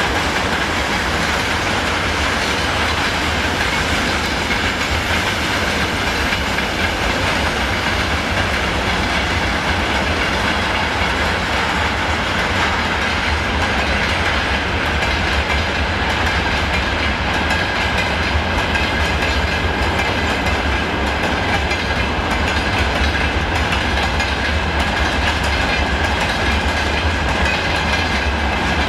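Train running past, a steady noise of wheels on rails that holds without a break.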